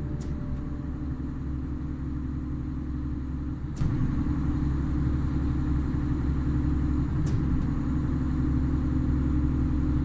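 Concrete pump's diesel engine running steadily, with a sharp knock about every three and a half seconds as the pump changes stroke; the engine gets louder at the second knock, about four seconds in.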